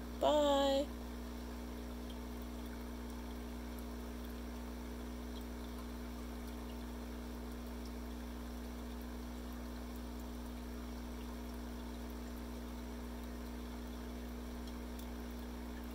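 Aquarium filter running: a steady hum with water trickling. About a quarter of a second in, a brief pitched sound glides up and holds for about half a second.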